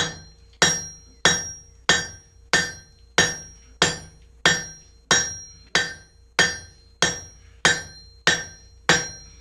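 Blacksmith's hammer striking a hot 3/4 inch round steel bar on an anvil, flattening it: about fifteen evenly paced blows, roughly one and a half a second, each with a short ringing from the anvil. A faint steady hum runs underneath.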